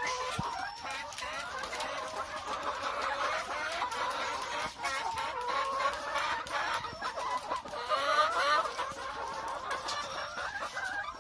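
A flock of caged BV380 layer hens clucking and calling over one another without a break, with scattered sharp clicks among the calls.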